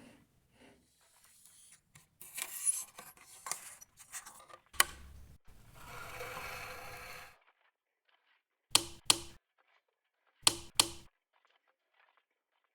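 Handling sounds from computer parts being fitted: rustling and scraping with a sharp click about five seconds in, then two pairs of sharp clicks, like parts snapping or latching into place.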